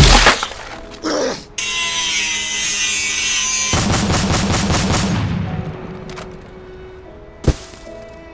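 Fight sound effects over music: a very loud impact at the start, then a dense crashing stretch and a quick run of sharp gunfire-like shots. Another single sharp hit comes near the end as held music notes take over.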